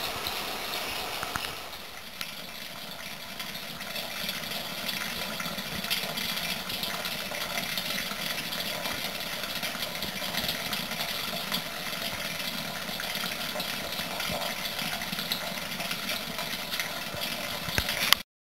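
Artesian well water running steadily from a stainless steel wellhead's outlet tube and splashing into the pit below. It cuts off abruptly near the end.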